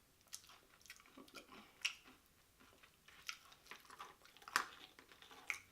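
Close-up mouth sounds of a person chewing loaded nachos: tortilla chips with cheese and jalapenos. Faint, irregular short clicks and crunches, the strongest a little under 2 seconds in and again around 4.5 seconds in.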